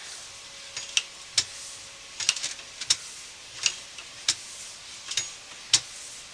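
Irregular sharp clicks and ticks, about one or two a second, over a faint hiss, as a push-rod sewer inspection camera is fed farther down the drain line.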